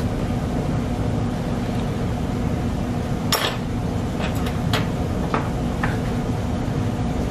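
A steady low background hum, with a sharp clink of tableware about three seconds in, then several lighter clinks over the next few seconds.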